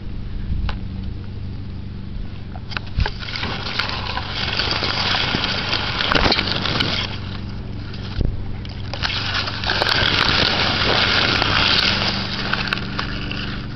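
A cat pawing and rubbing against the camera, heard as rough scraping and rustling on the microphone with scattered knocks, over a low steady hum.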